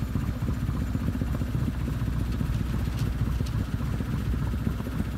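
Outboard motor of a small sailing yacht running steadily under way: a low, even rumble with a fast pulse.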